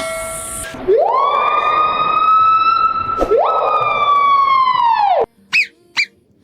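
A bird's long drawn-out call that rises and then holds steady. It rises again partway through and cuts off about five seconds in, followed by three short, high chirps.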